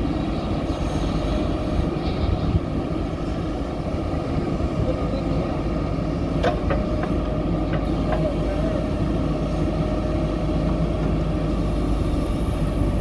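Diesel engine of a JCB 3DX backhoe loader running steadily while the backhoe arm and bucket are worked, with a few sharp clicks a little past halfway through.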